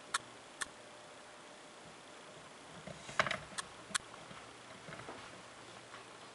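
Faint steady hum of a 23-watt Sylvania compact fluorescent bulb, with several sharp clicks: two in the first second and three more about three to four seconds in.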